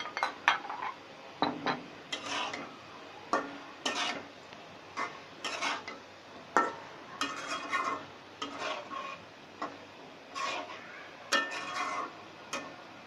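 A metal spatula scraping and clinking against a metal karahi as fish and potatoes are stirred into a thick masala, in irregular strokes about once or twice a second.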